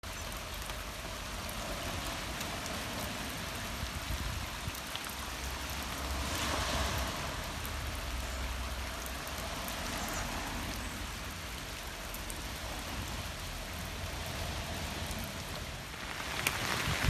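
Steady rain falling, with runoff water running across broken, washed-out tarmac. The hiss grows louder near the end.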